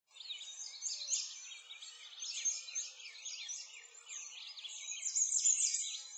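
Several birds chirping and singing at once, many quick rising and falling calls overlapping. The sound fades in at the start and is busiest near the end.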